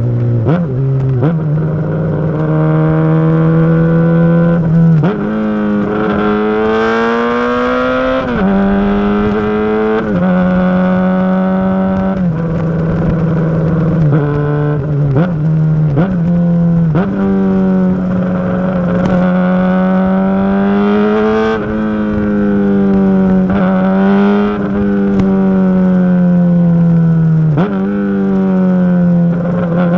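Honda CBR600RR inline-four running through a Yoshimura RS5 full exhaust system with the baffle in. The exhaust note holds steady revs for a few seconds at a time, then dips sharply and climbs back, again and again.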